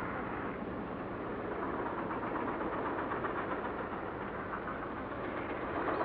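Steady rushing background noise with a low hum and no distinct calls or knocks.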